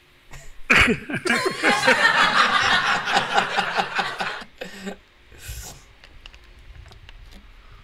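A man laughing: a quick, evenly pulsing run of laughs starting about a second in and lasting some four seconds before it stops.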